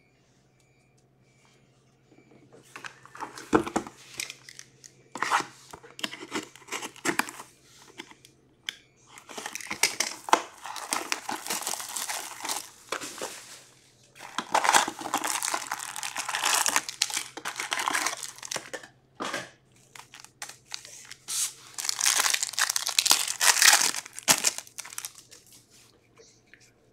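Upper Deck Ice hockey card box and its foil packs being torn open and crinkled by hand. The sound starts about two seconds in as scattered crackles, then turns into three long stretches of tearing and crinkling wrapper.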